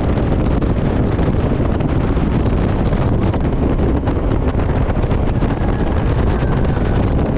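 Wind buffeting a GoPro microphone aboard a jet boat running at speed, with the boat's engine and rushing water blended into one loud, steady rush.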